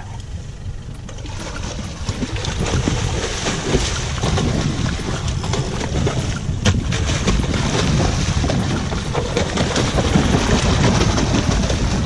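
Wind buffeting the microphone over water splashing, as tuna thrash and churn the surface beside the boat. The noise grows louder about two seconds in.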